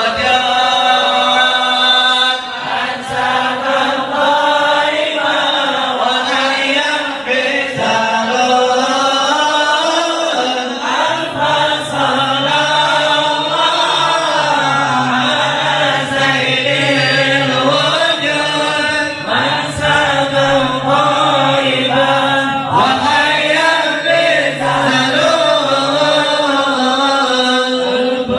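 Congregation chanting salawat (devotional Arabic praise of the Prophet Muhammad) together in a continuous melodic chant. A low steady note is held underneath for much of the middle.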